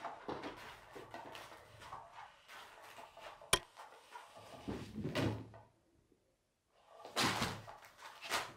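Motorized cat toy's wand scraping and rustling under its nylon cover in short spells, with a single sharp click about three and a half seconds in and a pause of about a second after the middle.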